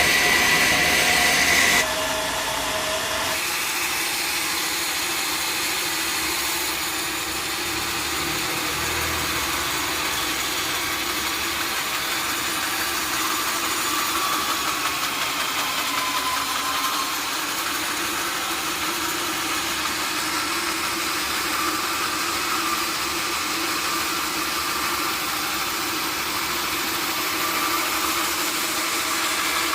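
Sawmill machinery running steadily. A louder whine with a high steady tone cuts off abruptly about two seconds in, and an even machine hum carries on after it.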